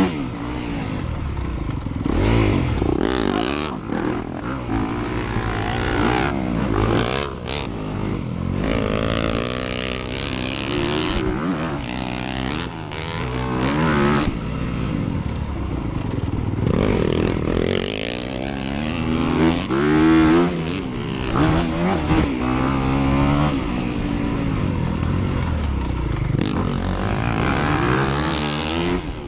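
Dirt bike engines revving up and down as they ride, the pitch climbing and dropping repeatedly through gear changes.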